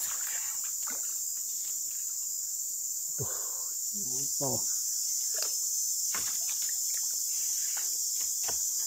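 Steady, high-pitched insect chorus chirring without a break, with a few faint knocks and a brief low voice-like sound about four seconds in.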